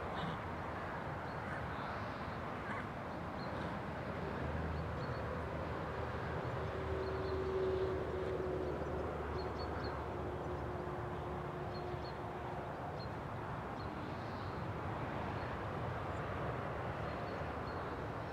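Distant engine drone in open-air ambience: it comes in about four seconds in, is loudest around eight seconds and fades out by about thirteen seconds. Faint bird chirps are scattered throughout.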